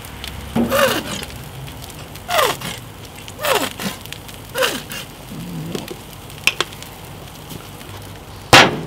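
Plastic squeeze bottle of sauce being squeezed over food on a gas grill, squirting and sputtering in four short bursts, each with a falling whistle of air. A loud sharp knock near the end.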